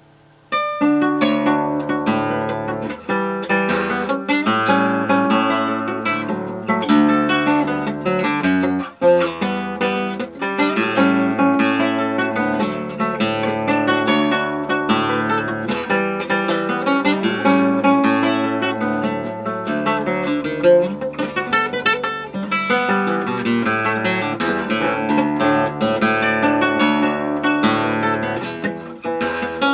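Acoustic guitar playing a choro, starting from silence, with a stepping bass line under a busy plucked melody.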